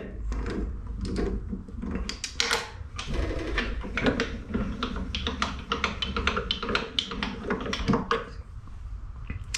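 Irregular metallic clicks, taps and light scraping as a die stock on a freshly threaded steel bar is handled and the drill press chuck holding the bar is undone by hand, over a steady low hum.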